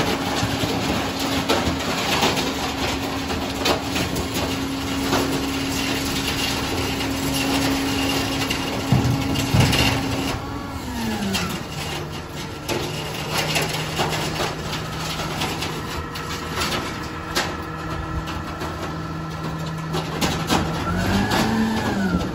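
Garbage truck engine running at a fast idle, dropping to a slower idle about halfway through, then revving up and back down briefly near the end. Scattered knocks and clicks are mixed in.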